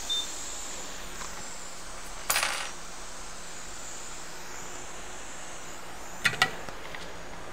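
Two light metallic clinks in quick succession near the end, typical of small metal repair tools being handled on a workbench, over a faint steady hiss of bench equipment; a brief hiss sounds about two seconds in.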